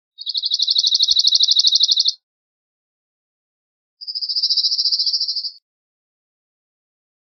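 Cirl bunting singing: two dry, rapid trills, each a single high note repeated quickly on one pitch, the first about two seconds long and the second, starting about four seconds in, a little shorter.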